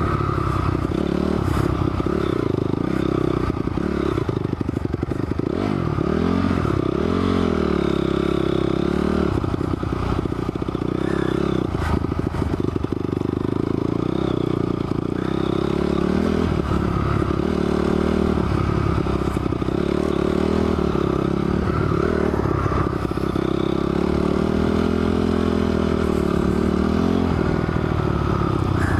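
Honda CRF250R dirt bike's single-cylinder four-stroke engine running under way, its pitch rising and falling again and again with the throttle, with scattered rattles and scrapes from the bike.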